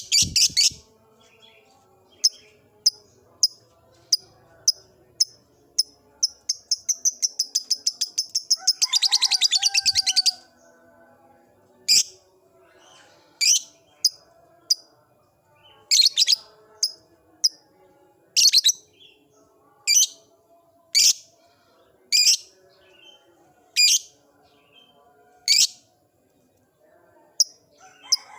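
A lovebird chirping: short high chirps about two a second, then a fast run of rapid repeated chirps for about four seconds, then single loud sharp calls every second or two.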